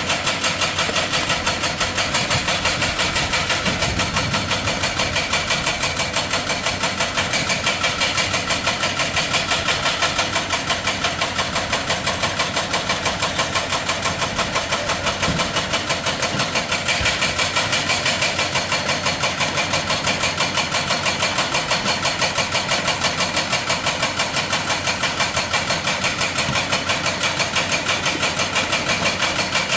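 Excavator-mounted hydraulic breaker hammering rock: a rapid, even train of blows that keeps going without a break.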